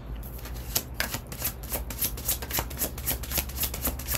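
A deck of tarot cards being shuffled by hand: a steady run of quick, soft card slaps and riffles, several a second.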